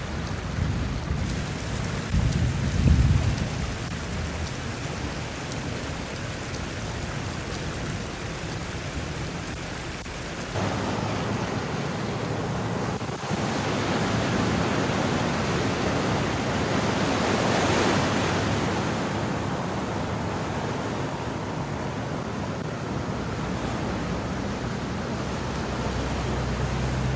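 Steady rushing noise of heavy rain and water, with a low rumble about three seconds in. About ten seconds in the sound changes abruptly and becomes brighter and louder.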